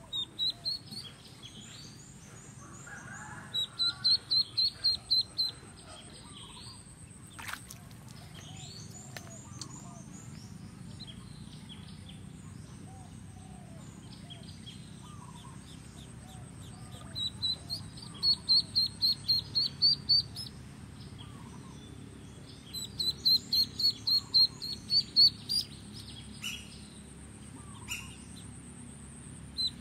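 A duckling dangling on a fishing line as live bait gives high, shrill distress peeps. They come in three long runs of quick calls, about five a second, with single peeps between.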